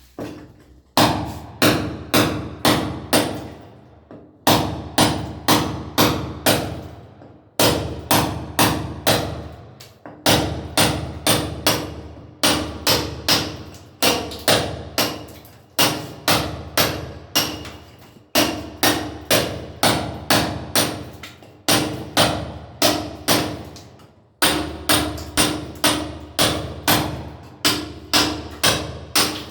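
Hammer blows on masonry in runs of about four to six strikes, roughly two a second, with short pauses between runs, each blow ringing briefly.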